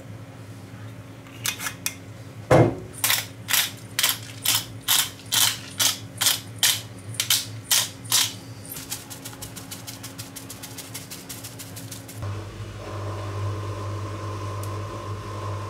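Hand pepper mill grinding black pepper onto a salad: a run of crisp crunching twists, about two a second, then a quicker stretch of finer grinding. A single clunk comes about two and a half seconds in, and near the end a steady low hum sets in.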